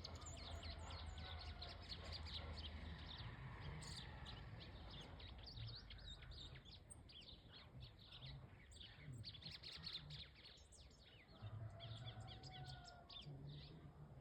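Golinha (white-throated seedeater) singing, a fast, continuous run of short high chirps and twitters, faint, over a low rumble.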